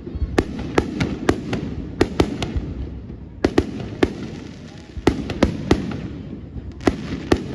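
Fireworks going off: about fifteen sharp bangs at irregular intervals, several in quick clusters, over a steady low rumble.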